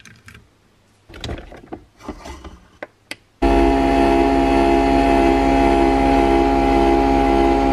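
Nespresso Vertuo coffee machine brewing: a loud, steady whirring hum that starts about three and a half seconds in as the machine spins the capsule and pumps coffee into the mug. Before it come a few light clicks and knocks as capsules are picked out of a glass jar.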